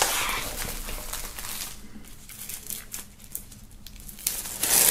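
Plastic shrink-wrap crinkling and rustling as it is pulled off a vinyl LP sleeve, with a sharp click at the start and a louder stretch of rustling near the end.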